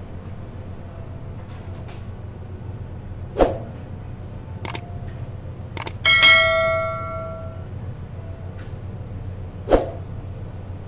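A single metallic strike about six seconds in that rings on for a second or so like a small bell, among a few sharp clicks and knocks, over a steady low hum.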